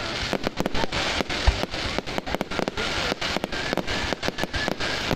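Fireworks going off in rapid succession, a dense run of sharp crackling pops, with one deeper boom about a second and a half in.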